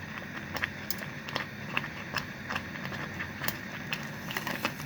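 A utensil stirring thickening lemon curd in a pot, clicking lightly against the pot about two or three times a second.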